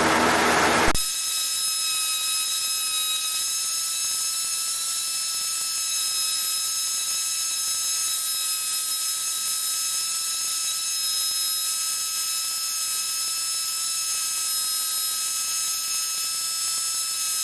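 Steady electrical hiss with several constant high-pitched whining tones and no low sound at all. About a second in, the broad cabin engine noise cuts off suddenly and this hiss takes over.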